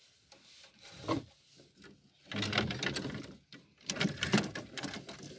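Spinning fishing reel being cranked: a rapid clattering whir, starting about two seconds in, pausing briefly, then going on again to the end.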